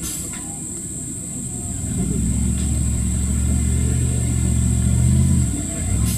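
Off-road 4x4's engine working under load: a rougher, lower rumble at first, then about two seconds in a steady, stronger engine note held for about four seconds, which drops away just before the end.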